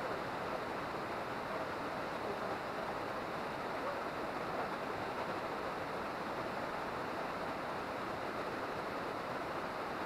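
Waterfall water falling into its pool: an even, steady rush.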